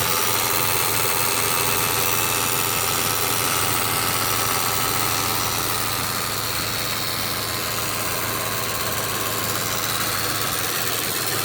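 Steady electrical buzzing from the engine bay of a 2012 Subaru Impreza, heard over the running engine, which appears only when the ventilation blower is set to the windshield (defrost) vents, whatever the fan speed and whether heat or air conditioning; its cause is unknown to the owner.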